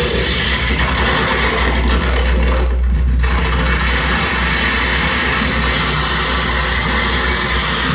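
Live harsh noise music from a table-top electronics rig through a PA: a loud, unbroken wall of noise over a heavy low rumble. From about half a second in the treble drops away until near six seconds, and around three seconds in most of the sound cuts out briefly, leaving only the rumble.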